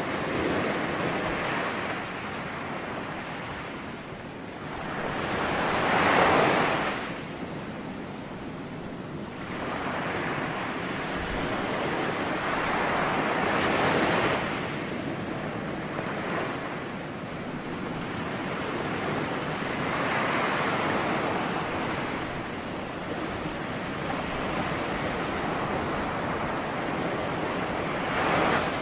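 Ocean surf: waves break and wash in a slow rhythm, each surge swelling and fading over a few seconds, about every six to eight seconds. The loudest wave breaks about six seconds in.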